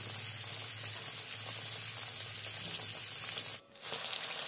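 Flour-coated milkfish tails frying in hot oil in a wok: a steady crackling sizzle. It breaks off for a split second about three and a half seconds in, then carries on.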